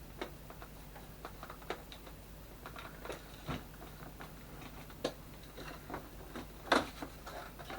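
Parts of a Dell OptiPlex 390 desktop being handled and fitted back together: scattered light plastic-and-metal clicks and knocks, with a louder knock near the end.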